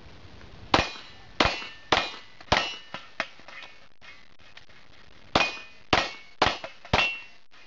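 Pistol fired in a competition stage run: eight shots in two quick strings of four, about half a second apart, with a pause of about three seconds between them, each shot followed by a short metallic ring.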